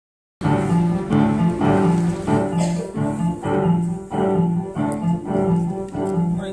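Piano introduction to a choral song: repeated chords in a steady rhythm, about one every two-thirds of a second, starting about half a second in.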